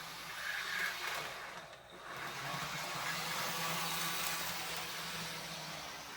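A model train locomotive runs along the layout track: a steady whir of the small motor and wheels on rail. It dips briefly about two seconds in, then picks up again.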